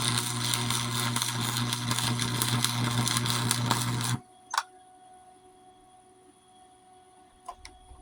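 Electric arc welding on a lawnmower deck: a loud, steady crackling arc with an electrical hum underneath, which runs for about four seconds and then cuts off suddenly. A short click follows about half a second later, and a fainter one near the end.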